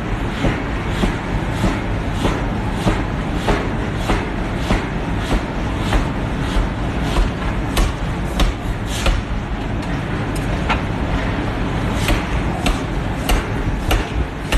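Forging hammer striking a white-hot steel billet over and over, upsetting it. The blows come at a steady rhythm of about one and a half to two a second over a constant low machine rumble.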